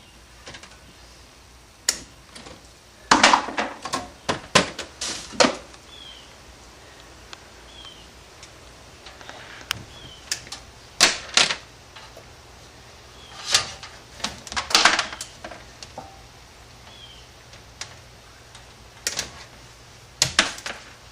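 Wire cutters snipping and wires being pulled and handled inside an air-conditioner unit: clusters of sharp clicks and snaps with pauses between them.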